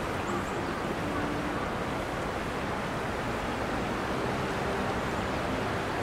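Steady rushing of the stream's flowing water, an even wash of noise at a constant level.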